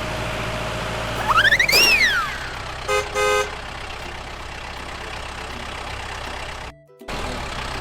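Steady low motor hum of a toy vehicle. About a second in, a whistle-like sound effect rises and then falls in pitch, followed by two short horn toots.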